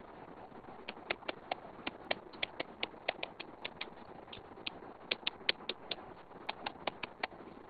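Stylus tip tapping and clicking on a tablet's glass screen during handwriting: quick, irregular ticks, about three or four a second, with short pauses between strokes.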